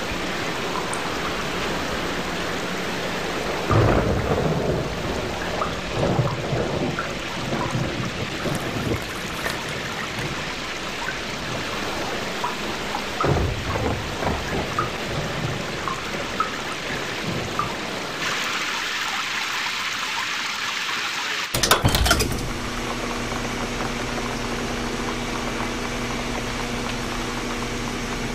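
Steady rain with several low thunder rumbles. Near the end it cuts sharply to a steady humming drone.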